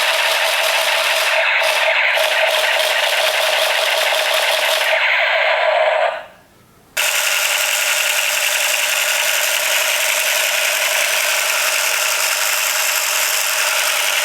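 Battery-powered M416 toy gun firing, a continuous rattling machine-gun sound with its motor's vibration. It cuts off about six seconds in and starts again a second later, as the trigger is released and pressed again.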